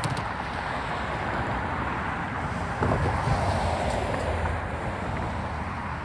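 Intermodal freight train rolling past: a steady rumble and rush of the stack cars on the rails, swelling louder about three seconds in.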